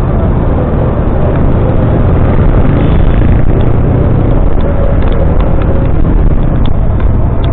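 Motorcycle on the move: a steady low engine rumble under a continuous rush of wind and road noise.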